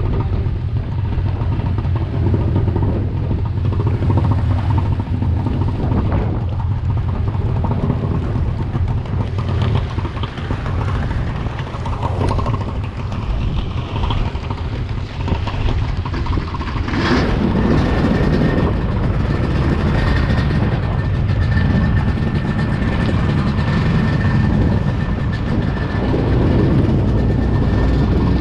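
Stand-up jet ski's two-stroke engine running at a steady low rumble, then opened up sharply about 17 seconds in and holding a higher, whining note as the ski gets underway, with water rushing past the hull.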